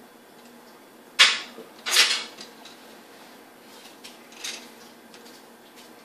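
A baby's plastic toy, with rings and beads, rattling and clattering on a high-chair tray as she handles it. There are two loud short clatters about a second and two seconds in, then a few fainter ones.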